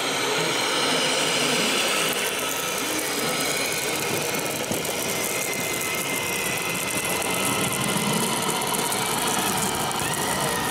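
Radio-controlled scale model of a Linn half-track truck driving, a steady mechanical running noise from its drive and tracks with a thin high whine that rises in pitch near the end.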